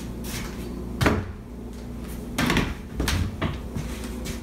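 A few dull knocks and bumps over a steady low hum: the loudest about a second in, then more around two and a half and three seconds.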